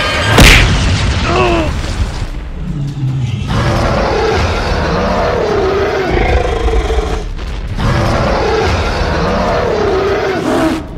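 Cartoon monster-fight sound effects: a heavy boom about half a second in, then a long stretch of wavering, growling creature calls over background music.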